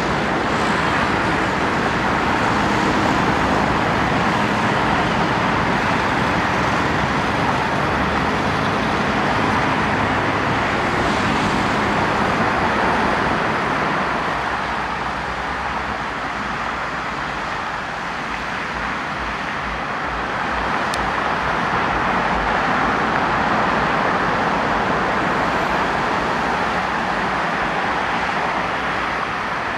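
Aircraft engine noise at the runway: a small propeller plane's engines drone as it rolls away down the runway, easing off after about twelve seconds. From about twenty seconds in, a steady jet engine hum swells, from a Boeing 737 taxiing.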